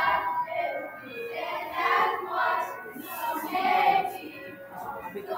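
A group of children singing together with music, in phrases that swell and fall about once a second.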